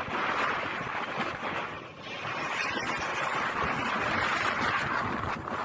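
Storm-force wind rushing and buffeting the microphone, a loud, even roar of noise that eases briefly about two seconds in.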